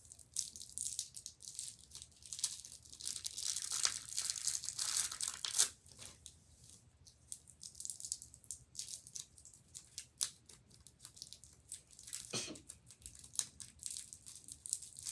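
Crinkly cellophane wrappers of Smarties candy rolls being handled and torn open by hand, a dense crackle in the first half that turns to scattered crinkles and clicks, with one sharper snap near the end.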